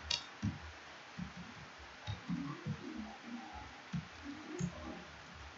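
Faint computer keyboard typing, soft scattered keystroke taps, with a sharp mouse click just after the start.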